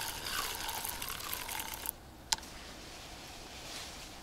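Fishing reel being cranked to bring in a hooked carp: a soft whirring hiss with a faint wavering gear whine, pausing briefly about two seconds in, with a few sharp clicks.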